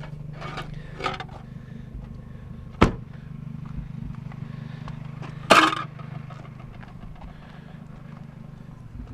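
Car engine idling with a steady low hum, with a sharp knock about three seconds in and a louder, brief clatter about five and a half seconds in.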